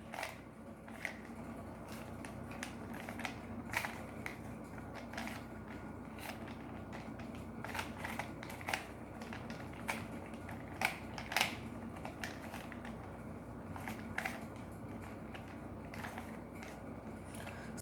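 3×3 Rubik's cube being scrambled by hand: irregular clicks and clacks of its plastic layers turning, with a few louder snaps among them.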